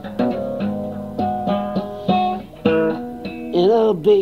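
Acoustic guitar strumming chords in a solo song accompaniment, from a home cassette recording. A singing voice comes in near the end.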